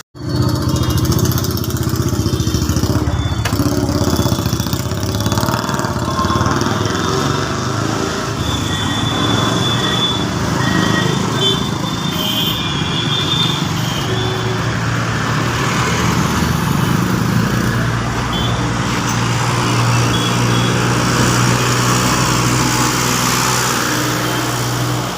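Tractor diesel engine running with a steady low drone.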